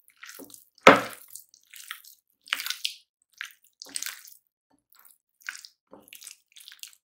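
A hand squeezing and mixing raw chicken with yogurt and spice paste in a ceramic bowl: irregular wet squelches, the loudest about a second in.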